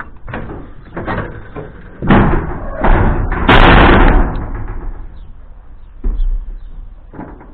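Irregular metal knocks and bangs on a combine harvester's sheet-metal body, with a louder scraping rustle a little past halfway.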